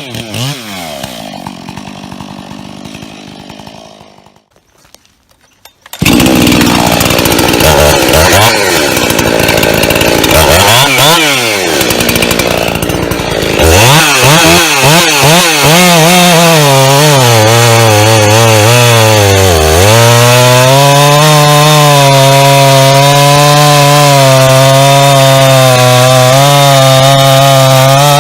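Performance-modified ('Bakerized') professional chainsaw. Its engine note falls away and goes nearly quiet, then about six seconds in the saw starts loud and is revved up and down several times. From about fourteen seconds it holds at high, steady revs, with the pitch dipping briefly once.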